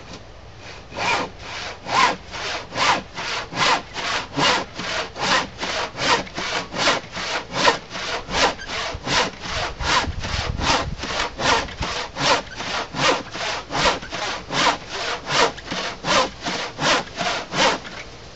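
Handsaw crosscutting through a thick glued-up wooden workbench top, in a steady run of even strokes, about two and a half a second, that starts about a second in and stops just before the end.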